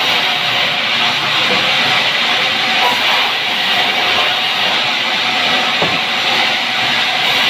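Sawmill band saw running and cutting lengthwise through a pine log on the carriage: a steady, unbroken hiss of saw noise.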